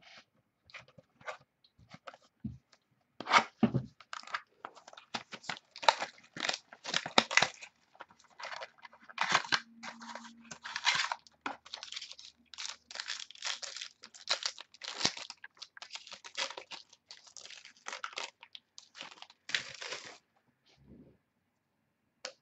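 Trading card pack wrapper being torn open and crinkled by hand: a long run of rapid tearing and crackling that stops about two seconds before the end.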